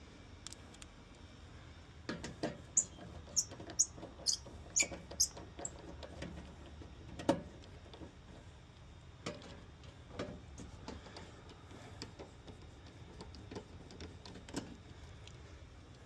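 Sharp clicks and light metallic knocks from hands and tools working at a residential electrical breaker panel: a quick run of about a dozen clicks in the first few seconds, then scattered single taps.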